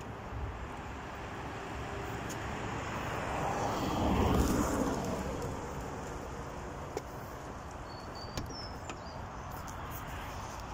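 A car passing by: a rush of tyre and engine noise that swells to a peak about four seconds in and then fades away. Two faint clicks follow a few seconds later.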